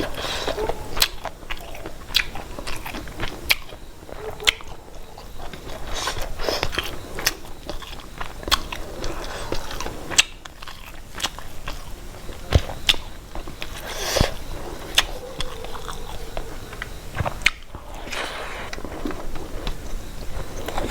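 A person eating mushroom and fish curry: chewing and biting close to the microphone, with frequent irregular sharp mouth clicks.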